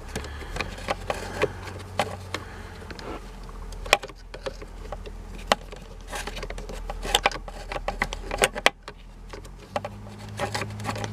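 Scattered clicks and knocks of hands and tools working the plastic parts of a car's steering column, over a low steady hum.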